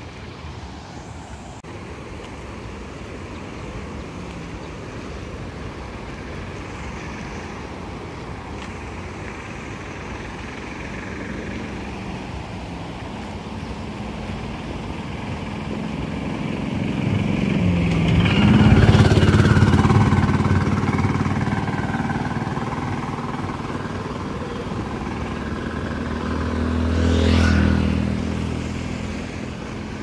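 Two motor vehicles pass close by: the first builds up over several seconds to a peak about two-thirds of the way through, its engine pitch dropping as it goes past, and the second passes more briefly near the end. Under them runs a steady rush of river water spilling over a low weir.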